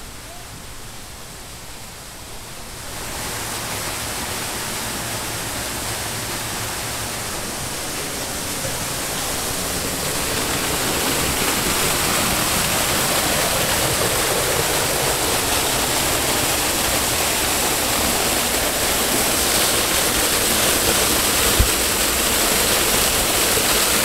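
Waterfall pouring onto rocks: a steady rush of falling water that comes in about three seconds in and grows louder over the next several seconds, then holds steady.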